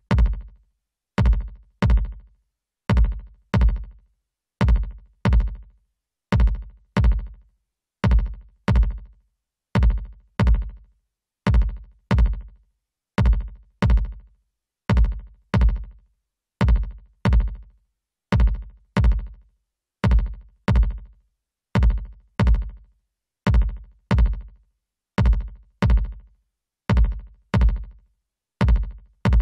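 A looped drum-machine beat of heavy, low electronic drum hits in pairs, the pairs repeating a little under every two seconds, each hit with a sharp attack and a short decaying tail. The loop is played through a parallel compressor plugin whose settings are being changed.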